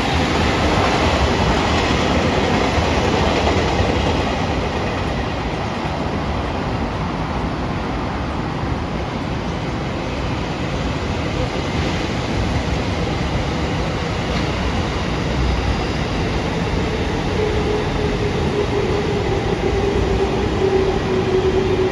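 Train running by: a loud, steady rumble of wheels on the track, with a faint tone that slowly falls in pitch over the last few seconds.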